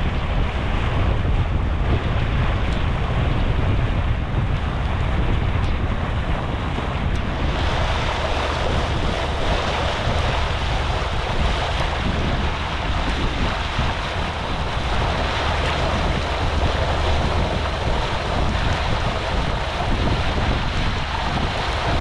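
Water rushing and hissing along a sailboat's hull as the boat moves through the sea, with wind buffeting the microphone and a steady low rumble. About seven seconds in the hiss of the water gets louder and brighter.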